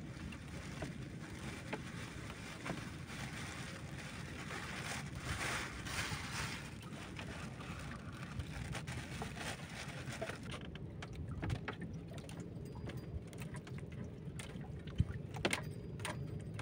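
Faint steady water and hull noise around a small boat afloat, with a few sharp clicks and knocks near the end.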